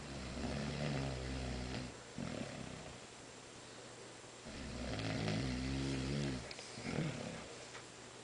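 A fish making snore-like rasping grunts: two long snores, each lasting nearly two seconds, about four seconds apart.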